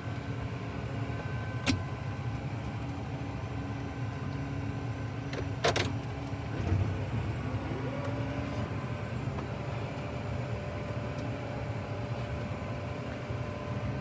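Steady diesel engine hum of a Case Magnum 220 tractor heard from inside its cab while plowing snow. Two sharp clicks come about two and six seconds in, and a whine rises about seven seconds in, then holds at the higher pitch.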